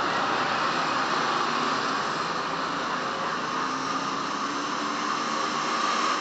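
Small motorbikes passing along a street, their engine noise fading away in the middle and starting to rise again near the end, over a steady hiss of street noise.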